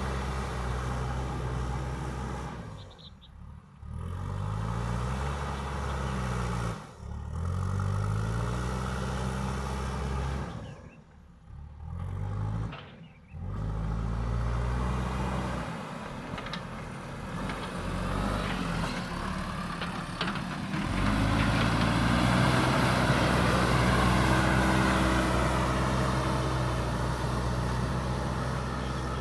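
JCB backhoe loader's diesel engine working, its pitch repeatedly rising and falling as it revs under load, with a few short breaks where the sound drops away. Over the last third it runs louder and steadier.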